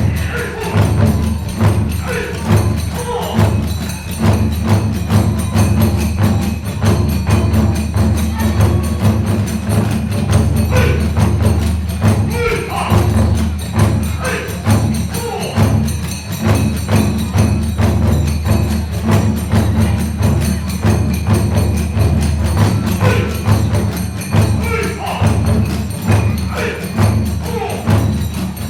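Kagura hayashi ensemble playing a fast, steady rhythm: large and small taiko drums beaten rapidly, with clashing tebyoshi hand cymbals and a bamboo flute above.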